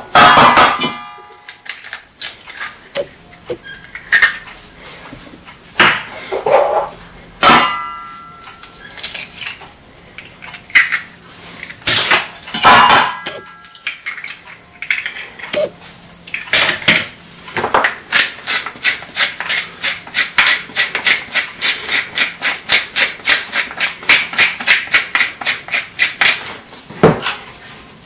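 Eggs knocked against the rim of a stainless steel bowl, the bowl ringing briefly after each knock. Later a hand pepper mill grinds with a fast, even run of clicks, about four or five a second, for several seconds.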